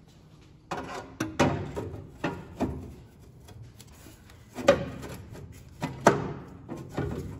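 A starter motor being worked by hand into a tight opening in a midplate and bellhousing: irregular clunks and scrapes of metal against metal, several of them sharp knocks as it is pushed and twisted into place. The opening has been cut only just big enough for the starter.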